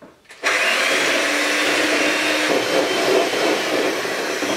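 Electric hand mixer switched on about half a second in, running steadily as its beaters whip cream in a bowl.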